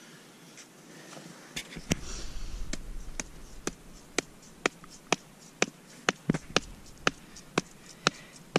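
A wooden stake being driven into the ground with a hatchet: sharp knocks at a steady beat of about two a second. A louder knock and scuffling come first, before the steady hammering.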